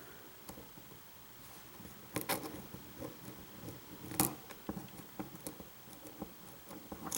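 Hook pick and tension wrench working the pins of a pin-tumbler lock: faint metallic scraping and ticking, with a few sharper clicks about two seconds in, around four seconds in and near the end, as pins set.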